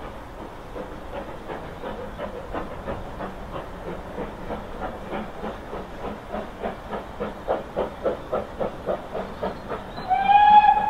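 Steam locomotive working, its exhaust beats at about three a second over a steady hiss, growing louder. A single steam whistle blast near the end.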